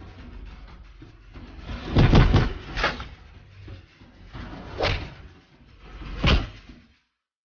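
Blows landing in a hand-to-hand fight: a loud double hit about two seconds in, then single hits near three, five and six seconds, over a low steady hiss. The sound stops abruptly near the end.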